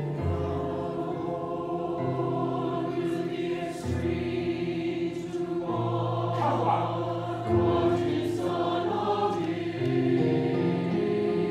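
Large mixed choir of men and women singing sustained chords together, the harmony moving to a new chord about every two seconds.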